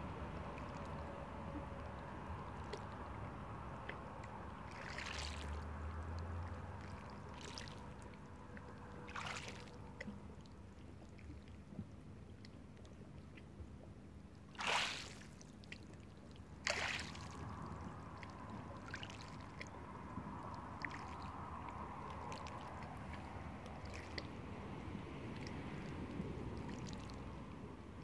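Water washing and sloshing against rocks at the shoreline, a steady wash with scattered short splashes; two louder splashes come a little past halfway, about two seconds apart.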